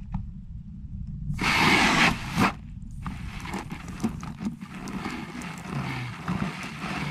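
Water sprayed onto a helmet visor to test its rainproof film: a loud hissing burst of spray about a second and a half in, a short second burst just after, then a steadier spattering of water with scattered droplet ticks.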